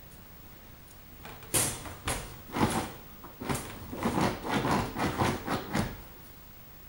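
Gordon Setter puppy climbing into a wire dog crate and scrabbling at the bedding, with the crate rattling: a run of irregular scuffling and knocking noises that starts about a second and a half in and stops near the end.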